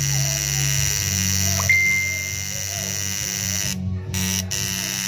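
Coil tattoo machine buzzing steadily as it inks a forearm, its tone changing about a second in.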